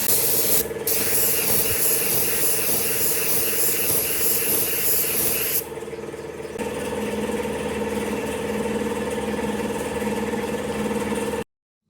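Compressed-air spray hissing, typical of a spray gun applying finish to wood. It breaks off briefly just under a second in and stops about five and a half seconds in. A steady machine hum runs beneath it and continues afterwards.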